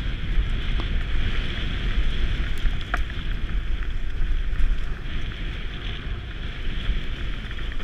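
Wind rushing over a helmet-mounted camera's microphone, over the steady rumble of mountain bike tyres rolling fast down a dirt and leaf-covered trail, with a few short clicks and rattles from the bike, the clearest about three seconds in.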